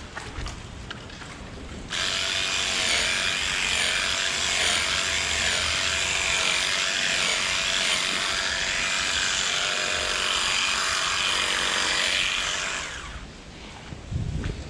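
A small handheld power tool runs steadily for about eleven seconds. It switches on sharply about two seconds in and winds down near the end, its pitch wavering a little as it runs.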